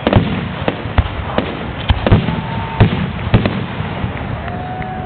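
Aerial fireworks display: a steady run of sharp booms and cracking reports from bursting shells, about one or two a second. Two brief whistling tones sound among them, one about halfway through and one near the end.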